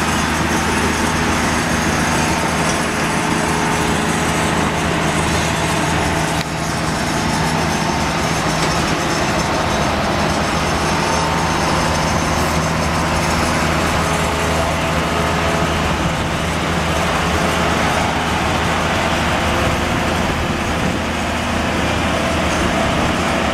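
Mt. Washington Cog Railway diesel-hydraulic locomotive M2 running steadily, its engine giving an even low hum under a wide noisy wash.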